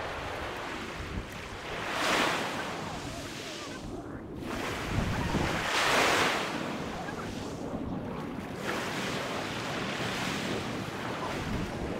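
Small waves breaking and washing up onto a pebbly beach, with the surf swelling louder as breakers come in about two seconds in and again about six seconds in.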